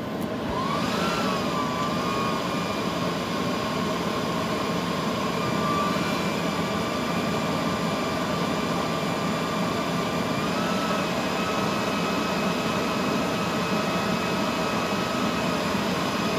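Rack server's cooling fans running with a steady rushing noise and a thin high whine. The whine rises and wavers about a second in, then steps up slightly about ten seconds in.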